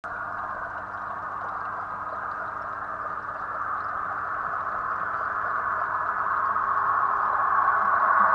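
Large-scale model train running on garden railway track, its wheels and motor making a steady rolling noise that grows louder as it approaches.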